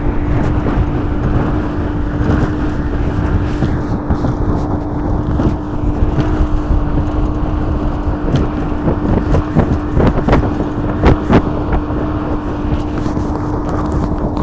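1985 Mercury 150 two-stroke V6 outboard running steadily with a constant drone, the boat underway with rushing noise from wind and water. A few sharp knocks come about two-thirds of the way through.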